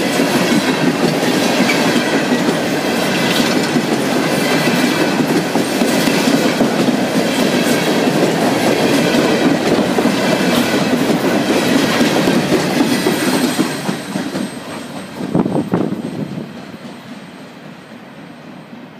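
A CSX coal train's hopper cars rolling past close by, steel wheels clacking on the rails, with a faint high squeal. The noise drops off about fourteen seconds in as the last car passes, with a short sharp bang a second or two later, then the train fades into the distance.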